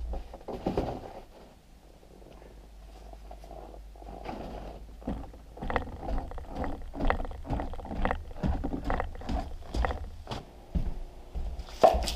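Boots climbing wooden stairs under a load of firewood: a regular series of footfalls on the boards, about two a second, with a sharp knock near the end.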